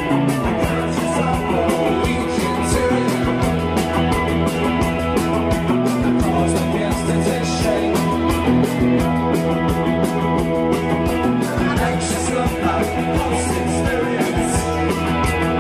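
Rock band playing live: electric guitars and drums, loud and dense, with a steady driving beat.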